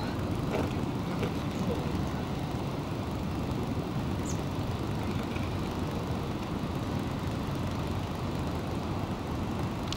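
Steady low outdoor background noise with no distinct events.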